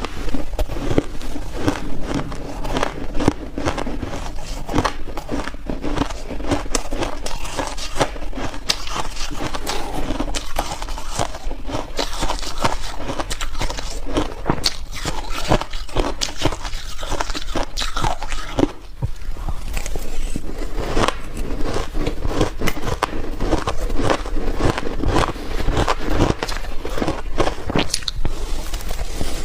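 Close-up biting and chewing of soft, powdery freezer-frost ice: dense, irregular crunching and crackling throughout.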